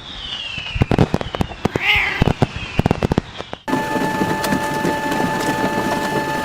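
Fireworks sound effect: whistles falling in pitch over a string of sharp pops and crackles. About three and a half seconds in it cuts off suddenly and background music with steady held tones takes over.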